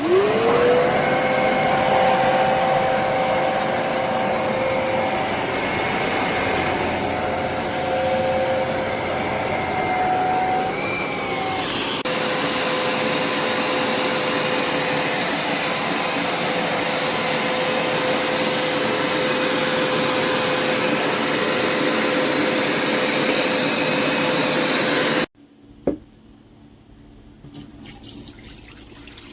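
Hoover Smartwash FH52001G upright carpet cleaner's suction motor spinning up with a rising whine, then running loudly and steadily. It cuts off suddenly near the end, followed by a single click.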